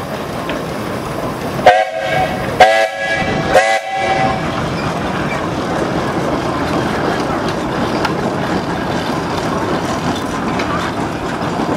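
Steam traction engine's whistle blown in three short blasts about a second apart, about two seconds in, over the steady noise of the engines running.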